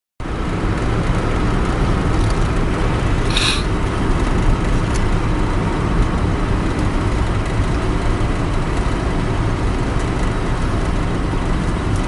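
Steady engine and road noise heard from inside a moving vehicle's cabin, with a brief high hiss about three and a half seconds in.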